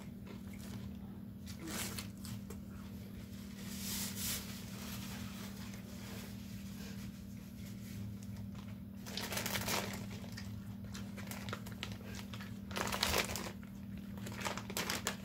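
Plastic salad-kit bags and a sealed meat package crinkling in several short bursts as they are handled, over a steady low hum.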